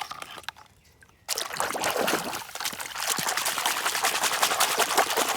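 Water poured and splashing over a muddy toy car to wash it off, starting suddenly about a second in and running steadily; a few small handling knocks come before it.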